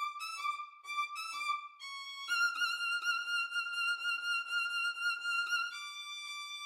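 MIDI-rendered solo violin playing a birdsong-like phrase: a few quick, short high notes repeated in little groups, then one long high note with vibrato, then a lower held note.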